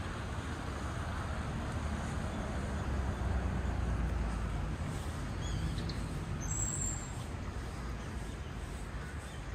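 Steady road traffic noise, a low rumble with a hiss over it, with a couple of faint short high chirps about five and a half seconds in.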